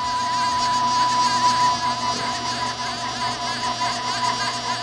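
Stepper motors of a NymoLabs NBX-5040 desktop CNC router driving the gantry in a fast jog: a steady high whine with a faint buzz.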